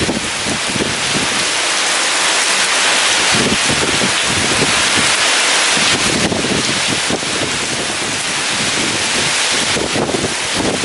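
Heavy rain falling steadily in a storm, a dense hiss, with gusts of wind surging and fading underneath.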